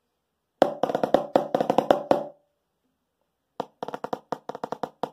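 Snare drum played with wooden sticks: a six-stroke roll rudiment exercise in two quick phrases of rapid strokes, the first about two seconds long, then a pause of about a second before the second.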